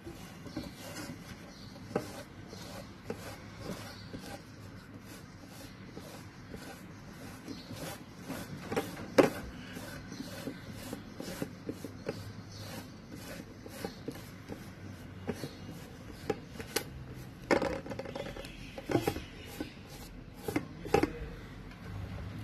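Fingers smearing thick gram-flour batter over a colocasia leaf on a metal surface: soft rubbing with irregular small clicks and taps, a sharper one about nine seconds in and a cluster near the end.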